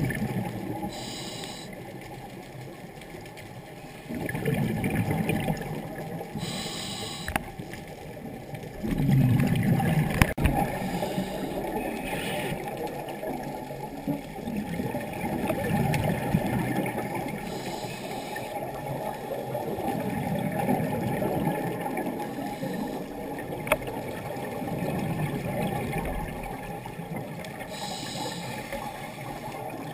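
Scuba breathing through a regulator underwater: a short hiss on each breath in, every several seconds, between low bubbling swells of exhaled air rising from the divers.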